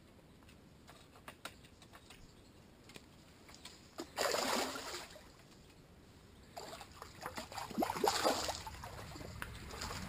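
River water splashing and sloshing at the bank in two bursts, about four seconds in and again from about six and a half to eight and a half seconds, with light knocks and rustles before. It comes from a hooked barbel being handled and released at the water's edge.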